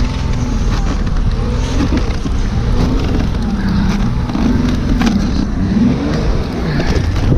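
Car engine revving up and down over and over as the car is rocked back and forth to break it free from deep snow, over a heavy low rumble.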